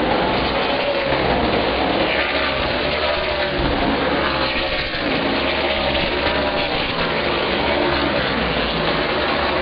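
A pack of Outlaw Super Late Model stock cars racing on an oval. Their V8 engines run loud and steady together, their pitch wavering up and down as the cars lift and accelerate through the turns.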